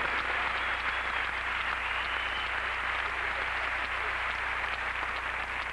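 Audience applauding: dense, steady clapping from a large arena crowd, over a steady low hum.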